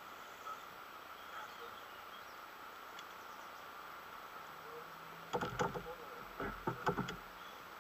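Steady background chirring of insects. About five seconds in, a rapid cluster of knocks and clatters of fishing gear being handled in a canoe.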